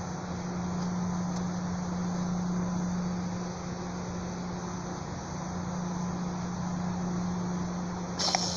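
A steady low hum under outdoor background noise, then a single sharp snap about eight seconds in as a fishing slingshot is released.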